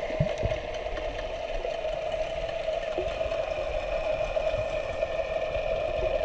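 Steady mechanical drone heard underwater, with a few soft low thumps about half a second in.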